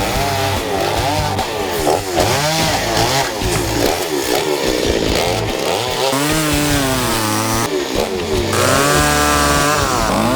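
Chainsaw engine revving up and down over and over as it cuts into a block of wood, roughing out a bear carving; it holds its revs for longer stretches in the second half.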